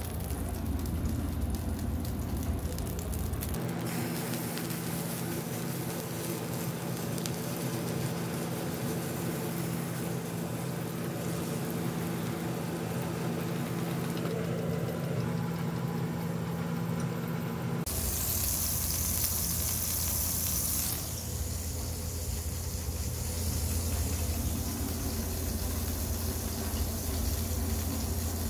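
Chicken patty frying in hot oil in a pan: a steady sizzle over a low hum. The sound changes abruptly twice.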